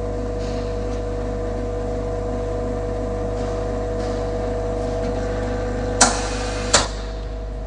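Vacuum casting machine running with a steady hum while silicone is degassed under vacuum. Near the end come two sharp clicks less than a second apart, and after the second one part of the hum stops.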